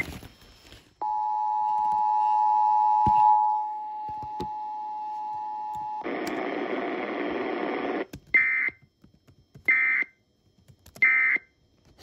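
Emergency Alert System test: the EAS two-tone attention signal sounds steadily for about five seconds, then about two seconds of hiss. Near the end come three short data bursts about a second and a half apart, the end-of-message codes that close the alert.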